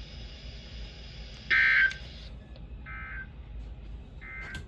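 NOAA Weather Radio SAME end-of-message data bursts: three short digital squawks about 1.3 seconds apart, the first the loudest, over faint radio hiss. They mark the end of the weekly test message.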